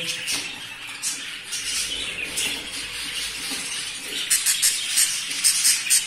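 Budgerigars chirping in their cage: short, high chirps, coming thicker and louder for the last two seconds or so.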